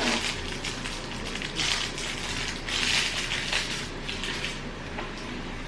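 Plastic sweet wrapper crinkling in irregular bursts as a wrapped chewy fruit sweet is unwrapped, dying down near the end.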